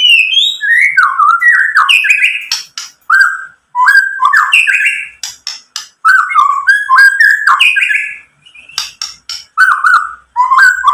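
White-rumped shama singing loudly in fast phrases of sliding whistled notes, broken by runs of sharp clicking notes, with brief pauses between phrases.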